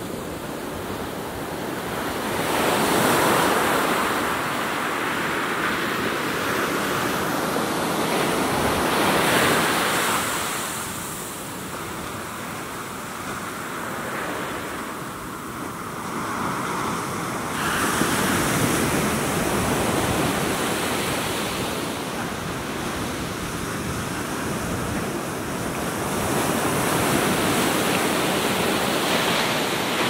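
Atlantic Ocean surf breaking and washing up on a sandy beach, a steady rush that swells four times as big waves come in, with some wind on the microphone.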